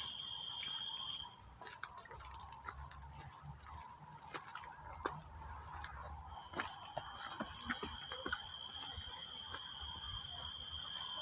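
Steady, high-pitched chirring of insects, several pitches at once, one of them stopping about a second in and coming back after about six seconds, with scattered faint clicks.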